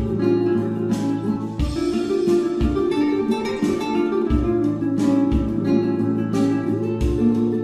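Background music led by plucked guitar, with low drum hits every second or so.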